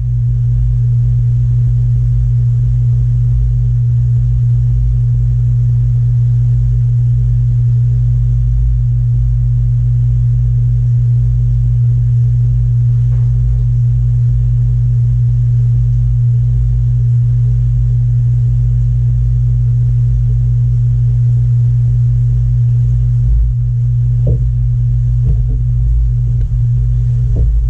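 A loud, steady low machine hum that does not change, like a motor or pump running.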